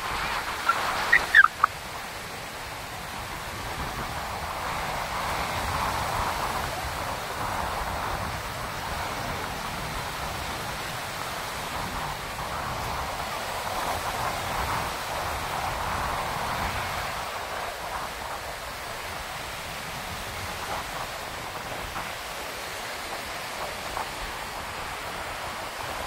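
Sea surf washing on a sandy beach with wind, a steady rushing that swells and eases. A few brief high cries from a small child in the first second or two.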